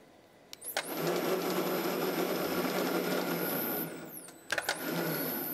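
An electric motor whirring: it starts suddenly, runs steadily for about three seconds, winds down, then starts up again a moment later.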